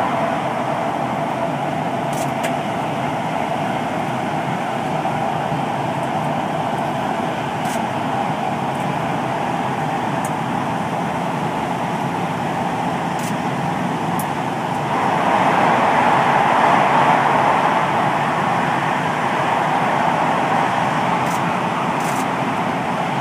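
Gautrain electric train running at speed through a tunnel, heard from inside the driver's cab: a steady noise of the wheels on the rails and the train's running gear, echoing off the tunnel walls. About fifteen seconds in it grows louder for a few seconds, then settles back.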